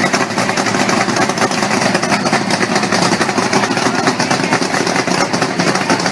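V8 engine running steadily, with a loud, rapid, even pulse.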